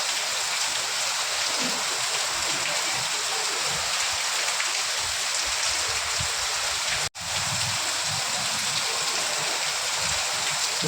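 Steady heavy rain, a dense even hiss, which cuts out for an instant about seven seconds in before carrying on.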